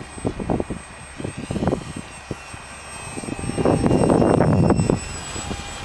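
Small electric RC model jet's motor and propeller whining overhead in a steady high tone that shifts slightly in pitch. Gusts of wind buffet the microphone, heaviest from about three and a half to five seconds in.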